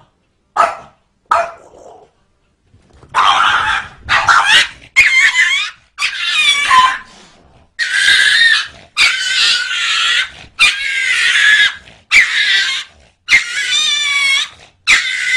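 Small dog barking twice in short sharp barks, then, after a brief pause, a long run of high, wavering squeals and yelps as a small dog scuffles with a cat.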